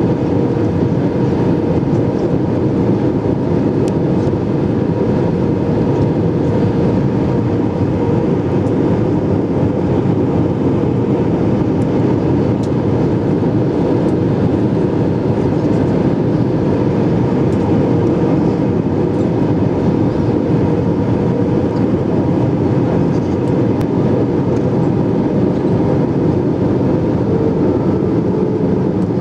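Steady cabin roar of an Airbus A320-214 on final approach, heard from a seat over the wing: its CFM56 engines and the rush of air over the airframe, with a steady hum running through it.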